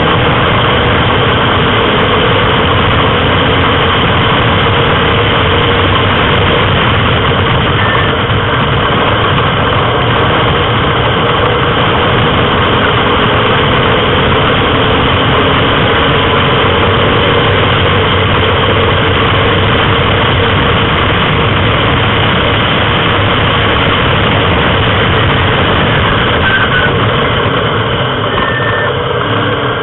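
Onboard sound of a Morgan race car at speed: its engine running hard in a loud, steady drone that hardly changes pitch.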